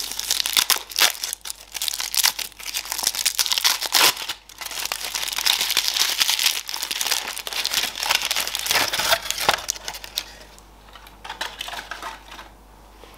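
Gold foil wrapper crinkling and tearing as it is peeled off a large chocolate ball. The crinkling dies down about ten seconds in, leaving a few faint rustles.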